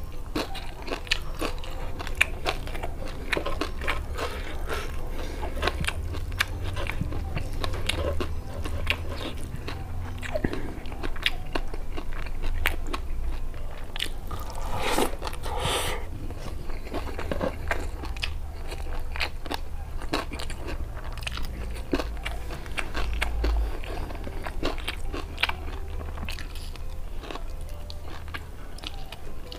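Close-miked chewing and crunching of a handful of rice with crispy fried bits and pea eggplants eaten by hand, with many small crisp clicks and a louder crunching spell about halfway.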